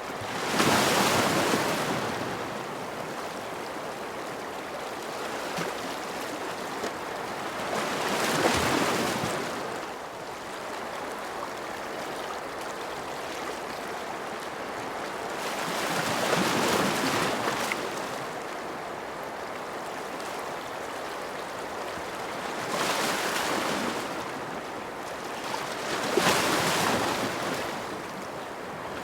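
Ocean waves breaking on a shore over a steady wash of surf, with five larger breakers swelling and falling away at uneven intervals.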